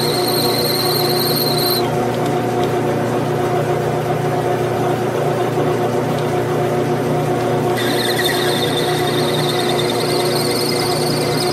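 Grizzly G9972Z metal lathe running with a steady hum while a twist drill bores into a spinning brass part. The drill gives a high squeal as it cuts, which stops about two seconds in as the drill is backed out and starts again about eight seconds in.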